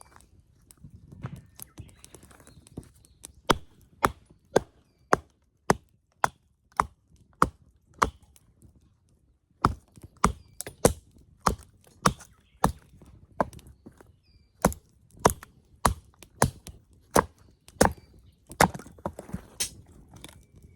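Wood being chopped with a hatchet at camp: steady sharp strikes about two a second, with a short pause a little before the middle.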